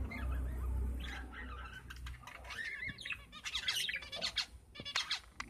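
Budgerigars chattering: a quick, dense run of short chirps and squawks that grows busier past the middle, over a low rumble in the first two seconds.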